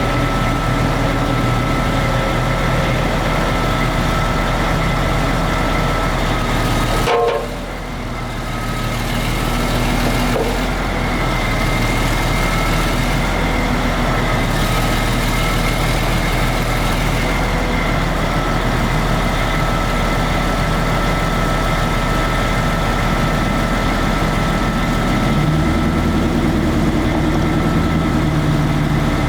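Diesel engine of a 2007 Vermeer TG 7000 tub grinder running steadily. It drops briefly in loudness about seven seconds in, and its low note shifts near the end.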